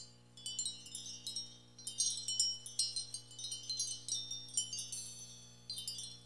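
High-pitched chimes tinkling in irregular clusters of struck, ringing notes, over a faint steady low hum.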